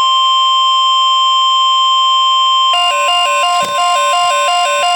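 NOAA Weather Radio 1050 Hz warning alarm tone: one steady, loud, high tone signalling that a watch or warning is about to be broadcast. It cuts off under three seconds in and gives way to a warbling two-pitch alarm that alternates about three times a second.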